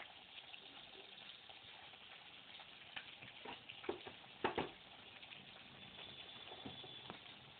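Faint steady hiss of room noise with a few soft clicks and knocks a little past the middle, the loudest a close pair.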